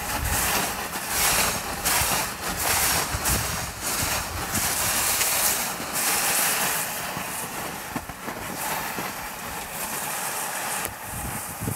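Kicksled gliding over snow: a steady hiss of the runners with repeated crunches of snow underfoot, coming thickly at first and thinning out later.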